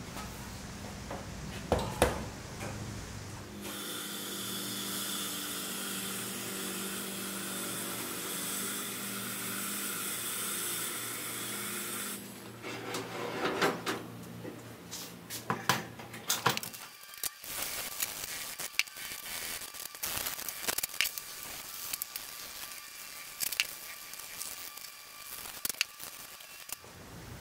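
A steady electrical hum for several seconds, then many light metallic clinks and knocks as small sheet-metal toy truck parts are handled at a powder coat oven's wire rack and set down on a work surface.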